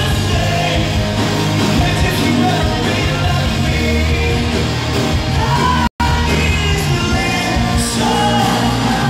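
A live rock band playing loud, with electric guitars and a singer, heard from within the crowd. The sound cuts out completely for an instant about six seconds in.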